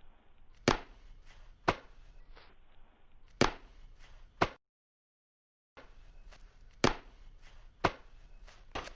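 A series of sharp single knocks, like chopping strokes, spaced about a second apart, with quicker strokes near the end. Partway through the sound drops to dead silence for about a second, then resumes, as at an edit.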